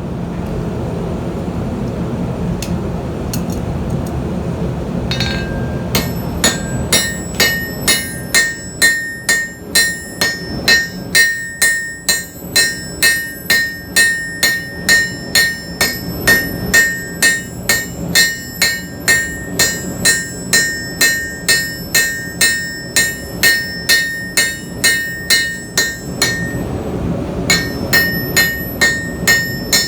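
Steady hammer blows on hot steel over an anvil while forging a nail, about two strikes a second with a bright metallic ring. They start several seconds in and pause briefly near the end before resuming.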